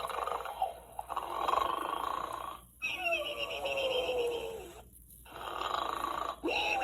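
Gund Arnold plush pig's recorded electronic snoring: a rasping in-breath snore followed by a long whistling out-breath that falls in pitch, heard twice, the second whistle starting near the end.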